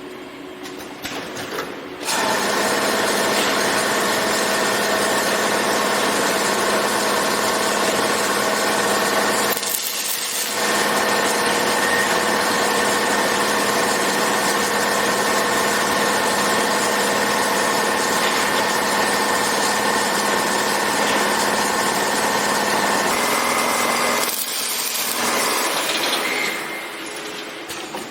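Automated rebar cage welding machine running, with a loud steady noise of several steady tones over a hiss. The noise starts abruptly about two seconds in, breaks off briefly about ten seconds in, and stops near the end.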